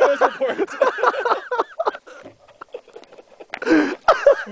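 Excited shouting and whooping from people reacting to a firework's blast, dying away after about two seconds; then scattered faint clicks and a short loud outburst near the end.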